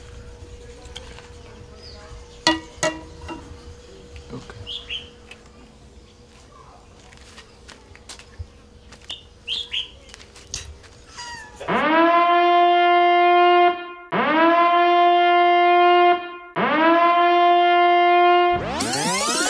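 Quiet outdoor background with scattered clicks and a few short chirps, then three loud horn-like blasts of a censorship sound effect. Each blast lasts about two seconds and swoops up quickly at its start before holding one pitch. A swirling, sweeping sound effect starts just before the end.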